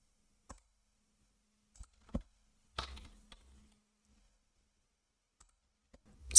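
A few sparse, quiet clicks of a computer mouse and keyboard, the loudest about two seconds in, with near quiet between them.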